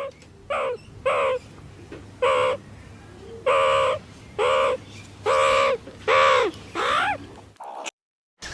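An animal calling repeatedly: about nine short calls in a row, each arching up and down in pitch, the later ones a little longer, ending in an abrupt cut to silence near the end.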